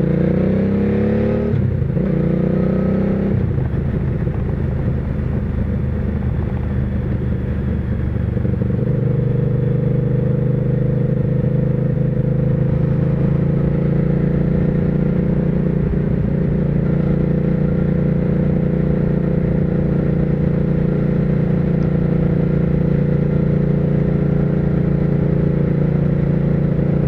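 A 2009 Hyosung GV650's 650 cc V-twin engine under way. In the first few seconds it rises in pitch and drops back twice as it shifts up, then it runs at a steady pitch at cruising speed.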